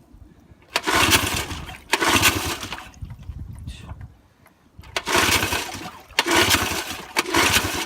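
1964 Wards Sea King 3 hp two-stroke outboard being pull-started, cranking and sputtering in five short bursts, two and then three after a short pause. It fires but won't stay running.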